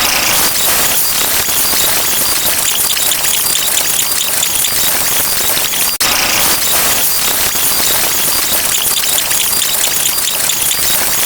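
Loud, dense hissing and crackling noise sound effect, with a brief cut about six seconds in before it resumes.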